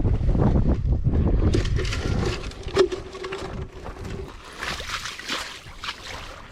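Water sloshing and splashing, with a heavy low rumble of handling or wind on the microphone for the first couple of seconds, then scattered quieter knocks and rustles.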